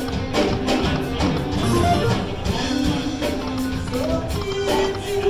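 Lightning Link Moon Race video slot machine playing its electronic music and melodic jingles, with a steady beat, as its reels spin round after round.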